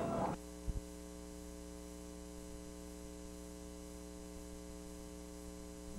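Steady electrical mains hum, with a ladder of overtones, on a blank stretch of videotape. The outdoor sound cuts off abruptly just after the start, and two short clicks follow less than a second in.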